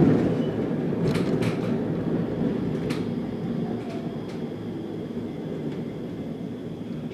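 Leoliner tram rolling over points, heard from inside the vehicle: a steady low rumble from the wheels on the rails that slowly fades, with a few sharp clicks as the wheels cross the switch. A faint high whine sets in about three seconds in.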